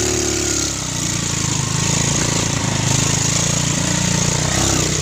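Vehicle engine running steadily under a continuous rushing hiss of road and wind noise, as heard riding aboard.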